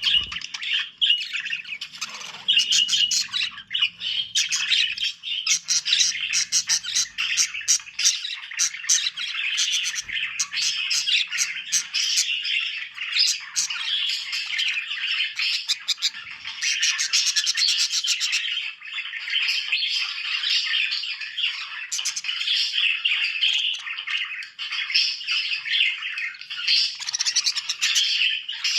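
Budgerigars chattering and warbling without a break, a dense mix of quick chirps, clicks and squawks.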